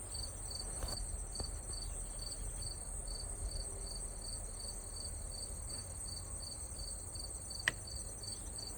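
Insects chirping: a regular high chirp about three times a second over a steady high-pitched drone, with a single sharp click near the end.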